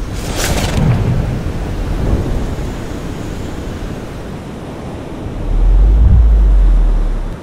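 Sea surf with wind blowing across the microphone, with a brief splash just after the start. About five and a half seconds in, a heavy low rumble of wind buffeting the microphone takes over, the loudest sound, and cuts off abruptly at the end.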